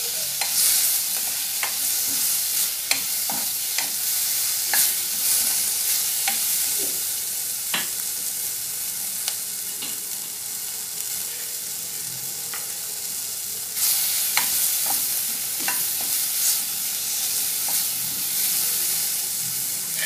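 Onion, tomato and chilli-powder masala sizzling in hot oil in a pan, with a utensil scraping and clicking against the pan as it is stirred.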